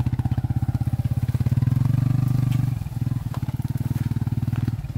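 Small motorcycle engine running at low speed as it rides slowly through dense undergrowth, a steady low drone with rapid even firing pulses. It eases off and grows quieter a little under three seconds in.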